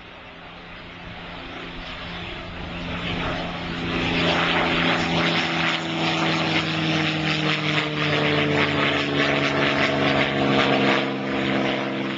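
Piston-engined Second World War fighter flying past, its V-12 engine growing louder over the first few seconds and holding loud with the pitch sinking slightly as it goes by, then easing off near the end.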